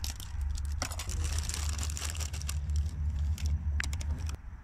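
Plastic chip bag crinkling and rustling as it is handled and opened, with many short crackles, over a steady low rumble.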